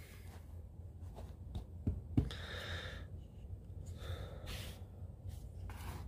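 Faint handling of a small hatchet multitool: two light knocks about two seconds in, with a few soft breaths.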